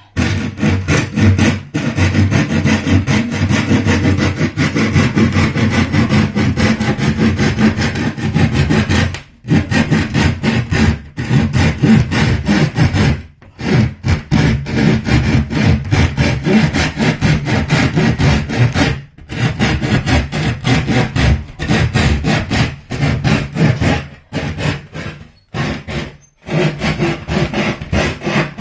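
A saw cutting through a wooden tabletop along a traced line, with several short pauses in the cutting.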